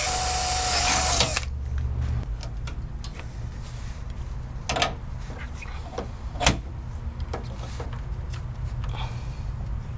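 A cordless drill whirs, drilling rivet holes, and winds down and stops about a second in. Two sharp snaps follow a few seconds later, the second the loudest, with a few fainter ticks, over a steady low hum.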